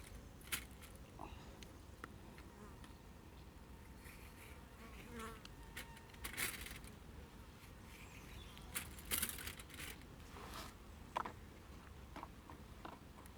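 An insect buzzing faintly, with scattered light clicks and short rustles; the loudest rustles come about six and nine seconds in.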